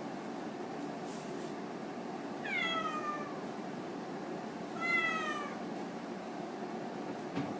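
Scottish kitten meowing twice, two high calls about two seconds apart, each falling in pitch, over a steady low hum.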